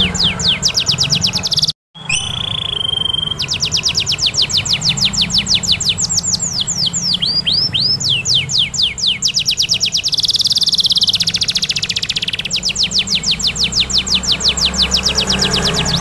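Domestic canary singing long, fast rolls of rapidly repeated falling notes. A short break comes about two seconds in, followed by a held whistle, and there is a buzzier trill around the middle.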